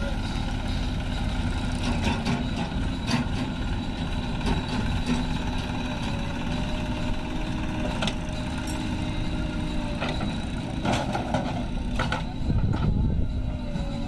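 Diesel engines of a JCB 3DX backhoe loader and a Force Sanman 6000 tractor running steadily under load, with a thin steady whine over the engine drone. Several sharp knocks and clanks come at intervals.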